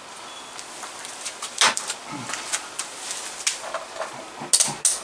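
Scattered clicks and knocks of metal clips and cable being handled while the leads of a battery-powered oxalic acid vaporizer are connected to a battery. The sharpest click comes about a second and a half in, and two close clicks come near the end.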